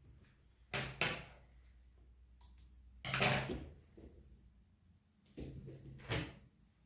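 About five short, sudden knocking and scraping handling noises in a small room, the longest and loudest about three seconds in.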